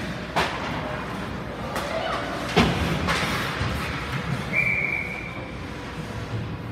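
Ice hockey game sounds: sharp bangs from play along the boards, the loudest a little over two and a half seconds in, then a short single blast of the referee's whistle about four and a half seconds in, stopping play. Spectator chatter underneath.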